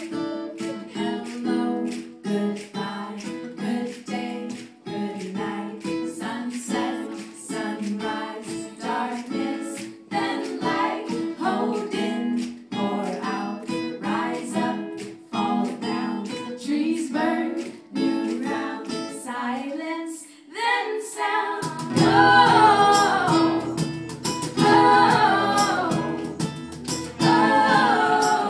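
Live acoustic band: an acoustic guitar strums and picks a quick, rhythmic pattern. A woman's singing comes in strongly about three quarters of the way through, with low notes joining beneath it.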